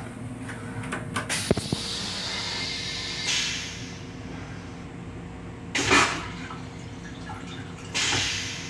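Metro-North M7 railcar toilet flushing: a few sharp clicks, then a hissing rush of water, with short loud hissing surges later on, the loudest about six seconds in. A steady low hum of the train runs underneath.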